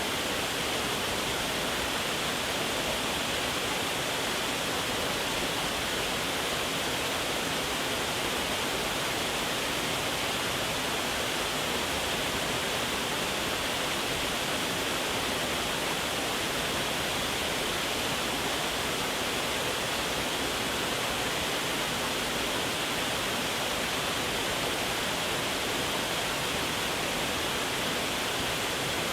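Waterfall: a steady, unbroken rush of falling water, even throughout with no changes or separate sounds.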